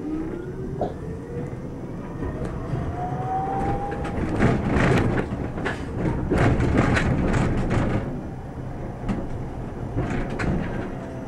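Electric tram heard from the driver's cab: the traction motor whine rises in pitch as it accelerates. About four seconds in come a louder rumble and a run of sharp clicks from the wheels running over rail joints and points. Near the end the whine falls in pitch.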